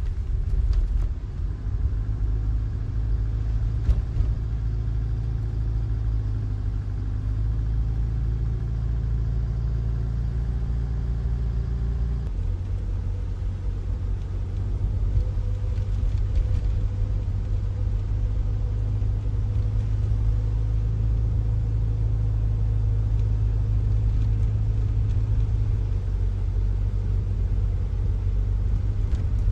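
Motor vehicle running, a steady low engine and road rumble, with a shift in its tone about twelve seconds in.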